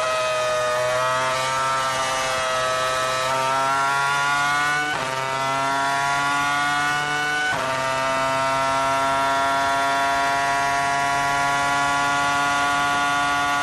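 Onboard sound of a 2004 Renault R24 Formula One car's 3.0-litre V10 accelerating hard. There are two sharp upshifts, about five and seven and a half seconds in. The pitch climbs between them, and after the second it rises only slowly, staying high.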